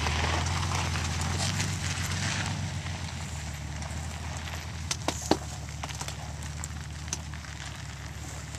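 A Jeep's engine runs at a low steady crawl while it tows a small off-road trailer over a rutted dirt trail. Tyres crunch and crackle on gravel and dirt, louder in the first couple of seconds, with a few sharp knocks about five seconds in.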